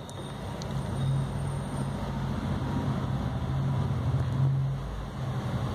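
Low, steady engine-like hum with an unchanging pitch. It swells about a second in and eases off slightly near the end.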